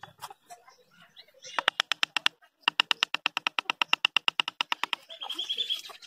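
A rapid, even train of sharp taps, about nine or ten a second, in two runs with a brief gap between them, followed near the end by a short high-pitched chirping.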